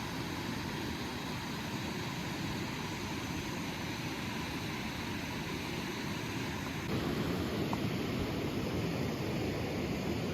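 Steady rushing of running creek water, growing louder and deeper about seven seconds in.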